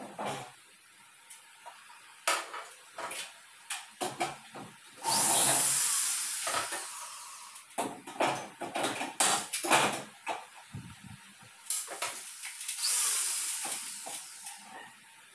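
Corded electric drill run into aluminum framing in two sustained bursts, about five seconds in and again near the end, each fading away. In between come a quick series of sharp clicks and knocks from the aluminum framing being handled.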